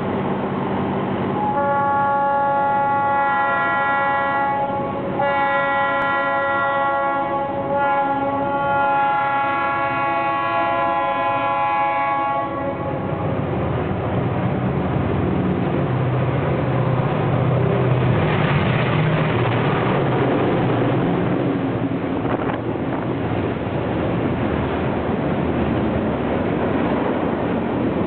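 A freight train's diesel-locomotive horn blows a multi-note chord in two long blasts as the train approaches, the second much longer. Then the lead locomotives (EMD SD40-2 and GP38-2s with two-stroke 645 diesels) pass close by, making a lot of noise, followed by the steady rumble of freight cars rolling past.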